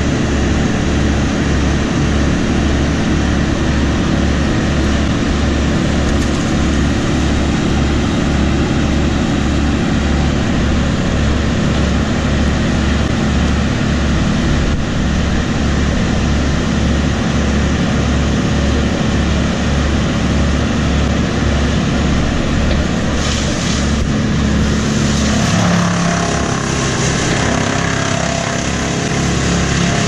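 Boom truck's engine running steadily, with a regular low pulsing of about two beats a second; about 25 seconds in, the pulsing breaks up and a brighter noise joins in.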